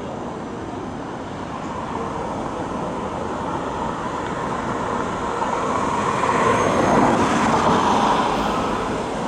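MTR Island Line M-Train, an electric multiple unit, running past on the track as it enters the station. It gives a steady rush of wheel and running noise that grows louder to a peak about seven seconds in, then eases as the last car goes by.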